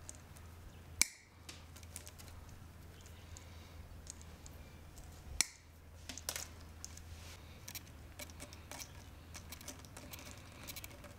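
Side cutters snipping plastic hose clamps off a fuel pump's hose: two sharp snaps, about a second in and about five seconds in, followed by light clicking as the plastic parts are handled.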